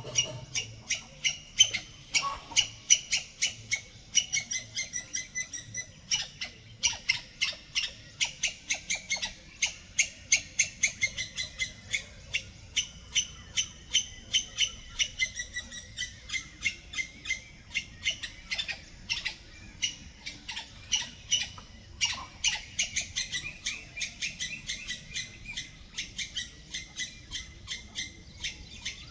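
Squirrel calling: a rapid, unbroken series of short, sharp, high-pitched calls, several a second.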